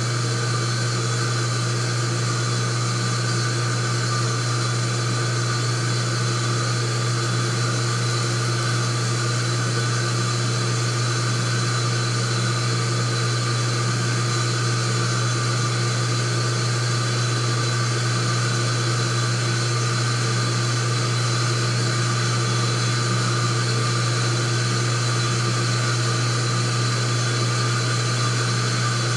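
HFI 3 kW induction heating system running under power while heating a brass faucet joint: a steady low hum with fainter, higher steady tones above it, unchanging throughout.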